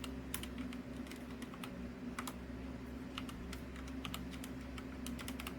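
Keys being typed on a computer keyboard: a run of irregular clicks as a root password is entered, over a steady low hum.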